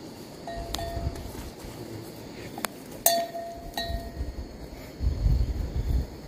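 A few light clinks, some of them ringing briefly at one pitch, as of hard objects knocking together, with a low rumble of handling near the end.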